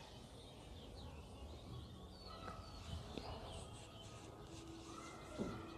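Faint small birds chirping in the background, a scatter of short high chirps over quiet room tone, with a couple of faint knocks near the end.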